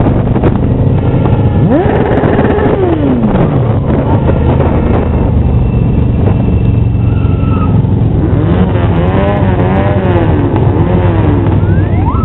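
Many motorcycle and scooter engines running together in a riding column, a dense steady drone. Several riders rev up and back down, with a quick run of repeated revs in the second half.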